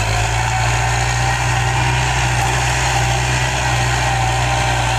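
Tractor engine running steadily at an even pitch as the tractor works across plowed ground.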